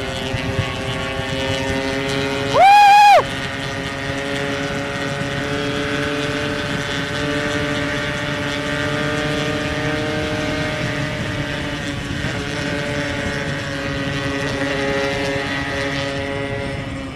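Yamaha RX-King two-stroke motorcycle engine running steadily at cruising speed, its pitch drifting slowly. About three seconds in, a loud single horn honk lasts roughly half a second.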